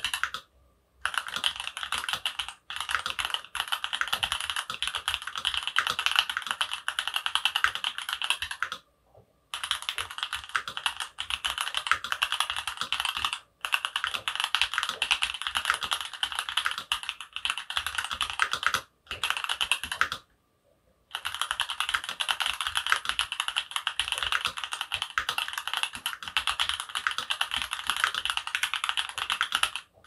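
Fast continuous typing on a mechanical keyboard with an aluminium plate, fitted with stock, unlubed 43 Studio Opblack switches: a dense run of keystroke clacks, broken a few times by pauses of under a second.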